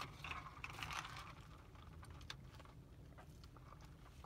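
Near quiet inside a car: a faint low steady rumble with a few small clicks and rustles.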